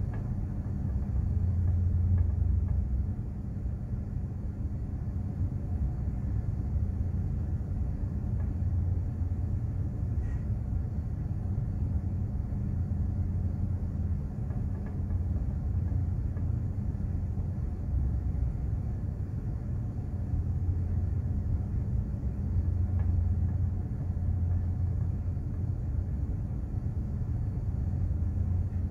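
Steady low rumble and hum of a container ship under way, its engine and hull droning, swelling and easing slightly from moment to moment.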